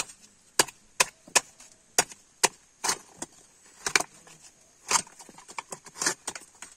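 Sharp, uneven knocks, about two a second, as a copra scooping knife pries and chops coconut meat out of halved coconut shells on a wooden block.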